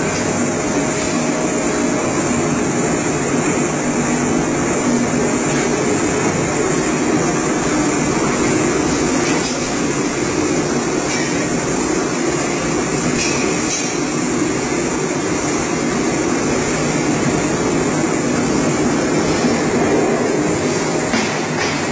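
Stainless steel shampoo blending tank with its wall-scraping agitator running: a loud, steady mechanical whir.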